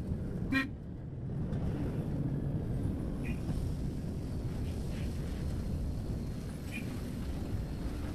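A vehicle horn gives one short toot about half a second in, over the steady low rumble of road noise inside a moving electric bus. Two fainter short beeps follow a few seconds apart.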